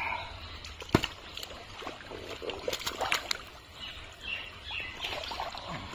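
Wet mud and muddy water squelching and splashing as hands grab and lift fish from a drained, muddy pond, with irregular slaps and a sharp one about a second in. A few faint bird chirps come in around four to five seconds.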